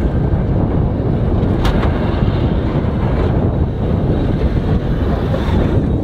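Heavy wind buffeting on the microphone over the low rumble of a pickup truck with a BOSS DXT V-plow driving up while pushing snow with the blade.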